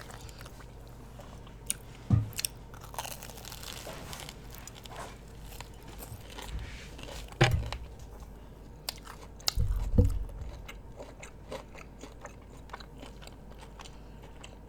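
Close-miked eating sounds: a person chewing and biting crunchy food, with small wet clicks throughout and three louder knocks about 2, 7.5 and 10 seconds in.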